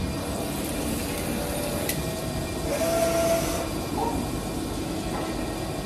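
Steady hum and hiss of machinery running on a factory shop floor, with faint steady tones, a click about two seconds in and a brief higher whine about three seconds in.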